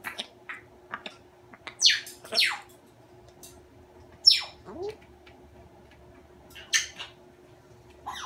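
African grey parrot giving a few sharp whistles that fall steeply in pitch, two close together about two seconds in, a loud one past the middle and another near seven seconds, with small clicks between them.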